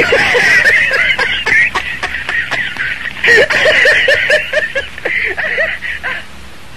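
Laughter in two bouts, each a quick run of repeated 'ha's, stopping about six seconds in and leaving a steady hiss.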